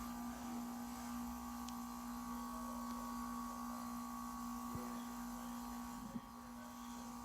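2019 Goodman heat pump humming steadily in its defrost cycle, one constant low tone with a fainter higher one above it, and a brief faint knock about six seconds in.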